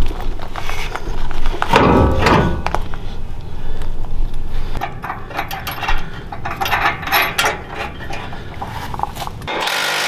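Metal hardware clinking and knocking as bolts, washers and a bracket are fitted by hand under a steel tube bumper, with a louder clatter about two seconds in. Near the end a steady running sound starts as a cordless power tool with a 3/4-inch socket is put on a bumper bolt.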